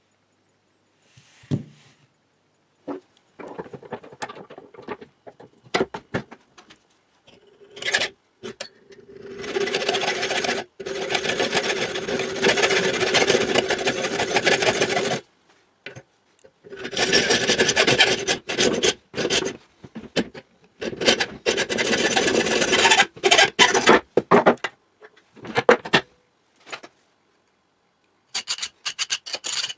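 Saw cutting through a metal DOM euro-cylinder lock body. Two long stretches of rasping strokes with a steady ring underneath, with short bursts and clicks before and after.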